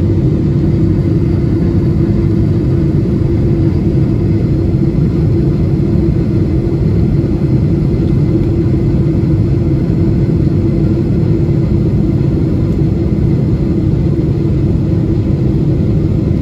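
Jet airliner cabin noise during the climb after takeoff: a steady low rumble of the engines and rushing air, with a constant droning tone running through it.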